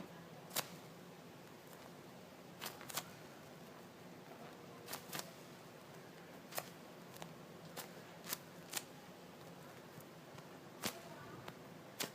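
Scattered sharp clicks and taps from handling small objects, about a dozen at irregular moments over a faint hiss.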